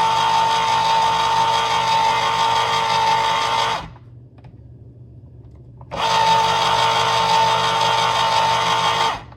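Small electric can opener motor whirring at a steady pitch as it turns and cuts around a can. It runs for about four seconds, stops for about two, then runs again for about three seconds.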